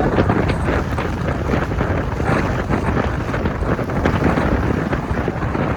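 Strong wind buffeting the microphone: a loud, steady rush and rumble with irregular gusts.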